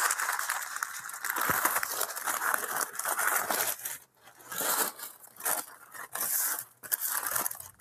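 Paper sandwich wrapper crinkling and rustling as it is unfolded by hand: a long stretch of crackling, a brief pause about four seconds in, then several shorter bursts.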